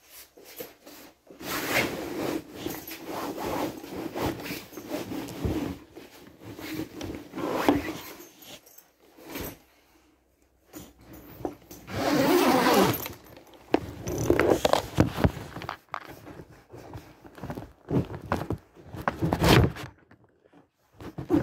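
Irregular bursts of rustling and scraping handling noise, with a few sharp knocks, as items are packed into a wheeled laptop trolley bag.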